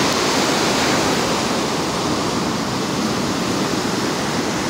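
Ocean surf breaking and washing up onto a sandy beach: a steady rush of waves.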